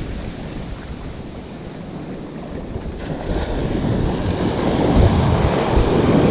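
Ocean surf washing on the beach, with wind buffeting the microphone; the sound builds louder over the second half.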